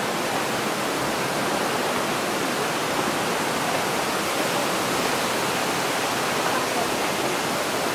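Waterfall in a rock gorge, a steady rush of falling water.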